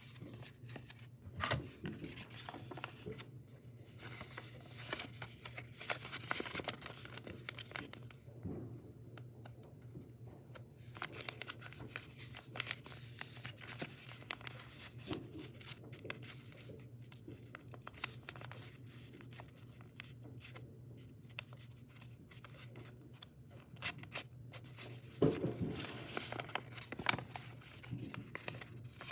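A sheet of origami paper being folded and creased by hand: irregular rustling and crinkling with small sharp crackles as the folds are pressed. A faint steady low hum runs underneath.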